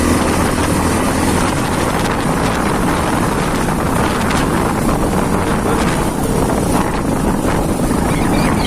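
A loud, steady rush of wind buffeting the microphone over a running vehicle engine, as if on a moving vehicle.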